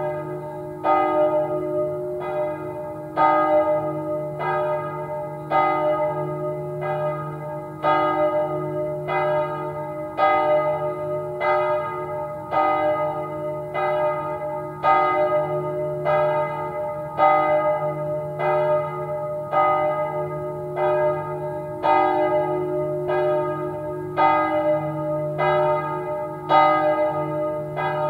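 Church bells ringing the evening Angelus: regular strikes, a little more than one a second, each ringing on and decaying over a steady low hum.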